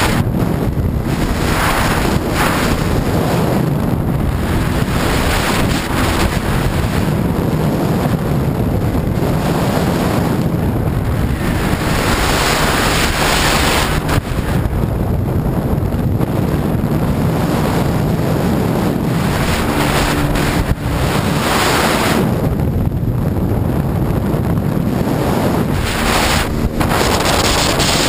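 Sea-Doo jet ski running at speed: a steady engine drone under rushing water spray, with heavy wind buffeting on the microphone that swells and fades every few seconds.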